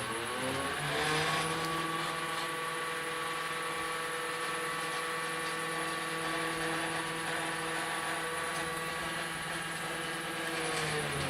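Stepper motors of a DIY CNC table whining through one long gantry move: the pitch rises as they speed up about a second in, holds steady, then drops as they slow near the end.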